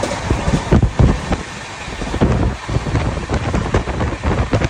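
Wind buffeting the microphone in irregular gusts over the steady rumble of a moving train.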